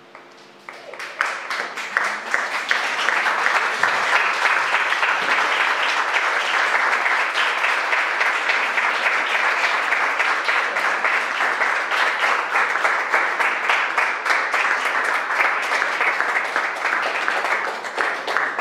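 A small audience clapping, starting about a second in and going on steadily, then beginning to thin out near the end.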